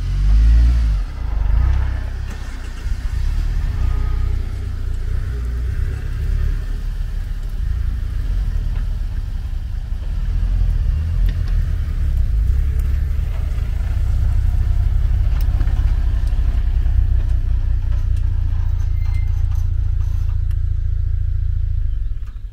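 A motor vehicle driving: a steady low rumble that swells slightly about halfway through and cuts off abruptly at the end.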